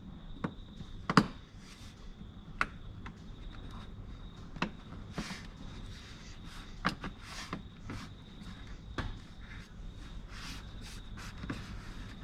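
Scattered sharp clicks and knocks with some rustling as a plastic door-handle surround and handle are pressed and clipped into a car door by hand. The loudest knock comes just over a second in.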